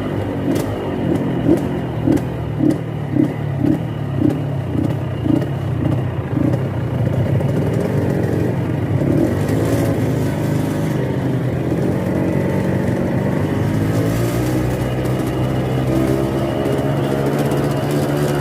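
Yamaha RX-King 135 cc two-stroke motorcycle engine running through an exhaust tuned for a snoring 'ngorok' note. It burbles in even pulses about twice a second for the first six seconds, then runs steadily with small rises in pitch.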